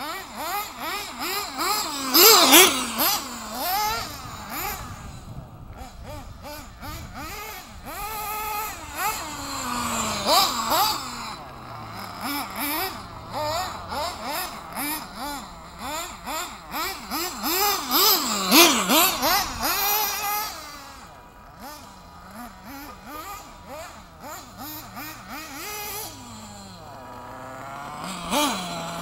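Small nitro glow engine of an RC buggy revving up and down over and over as it drives, its high pitch rising and falling with the throttle. The loudest surges come about 2, 10 and 19 seconds in.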